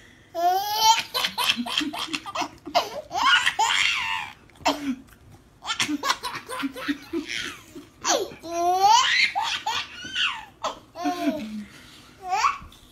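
Baby laughing in repeated belly-laugh fits, with high rising squeals about half a second in and again around eight seconds.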